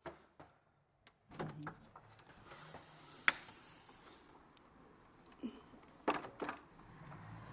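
Wooden window shutters and a casement window being opened and pushed back: scattered clicks, knocks and clacks of the latch and shutters, with one sharp click about three seconds in.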